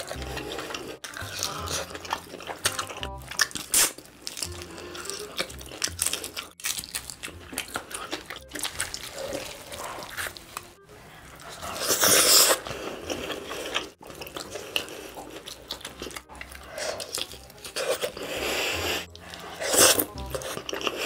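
Close-miked eating of a sauced whole roast chicken: meat and skin torn apart by hand, with biting, crunching and chewing, loudest in bursts about halfway through and near the end. Background music runs underneath.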